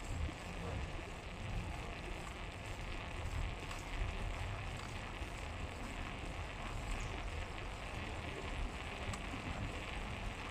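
Steady wind rumble on the microphone and road noise from a moving bike, an even hiss with no engine tone.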